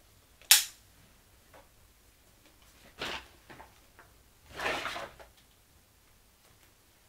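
A loud, sharp click about half a second in, then a door's lever handle turning and the door swinging shut and latching.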